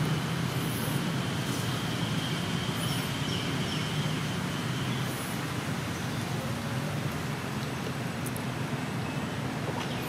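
Steady low background rumble at an even level, with a faint thin high tone in the first half and a few brief, faint high chirps.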